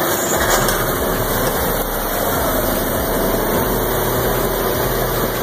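Oshkosh M1070 8x8 tank-transporter tractor's diesel engine running steadily under load as the truck drives through deep mud, its wheels churning through the wet ground.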